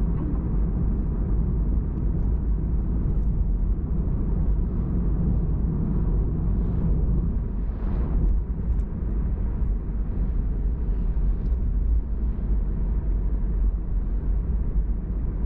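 Steady low rumble of tyres and engine heard from inside a moving car's cabin. An oncoming truck briefly swells the noise as it passes about eight seconds in.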